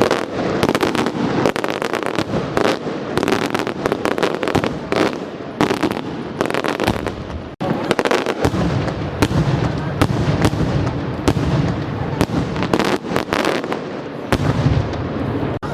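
Fireworks going off in a dense barrage of rapid bangs and crackles, several a second without a break. The low booming grows heavier from about halfway through.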